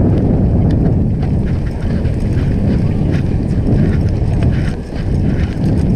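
Wind buffeting the microphone of a handlebar camera on a moving bicycle: a loud, steady, low rumble that eases briefly near the end, with faint ticks and rattles from the bike over wet brick paving.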